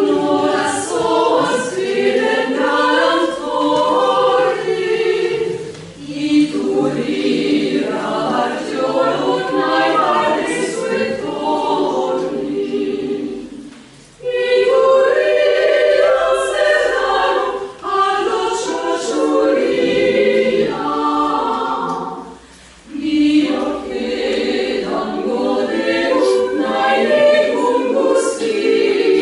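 Women's vocal ensemble of seven voices singing a cappella in parts, with short pauses between phrases about fourteen and twenty-two seconds in.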